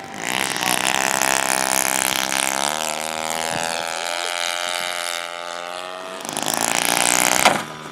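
Radio-controlled model airplane's engine running at high revs, its pitch shifting as the plane passes. It eases off in the middle, swells again near the end, then cuts off abruptly.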